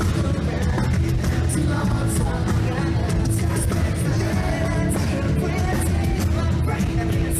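Loud rock music with a singing voice, playing steadily without pauses.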